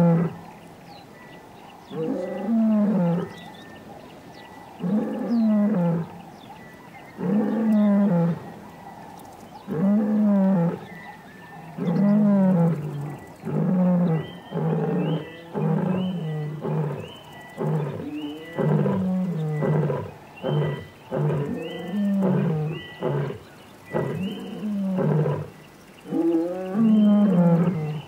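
Male lion roaring: deep, full-throated roars about every two and a half seconds give way to a run of shorter grunting roars about one a second, with one more long roar near the end. It is a roaring bout that advertises his presence.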